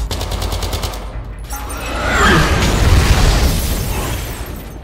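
Intro sound effects: a short burst of rapid automatic gunfire for about a second, then a big explosion that builds, booms and rolls off over the next few seconds.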